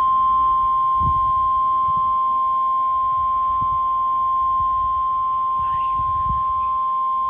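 NOAA Weather Radio warning alarm tone: one steady, loud tone near 1 kHz (the 1050 Hz alert tone) that signals a warning is about to be broadcast.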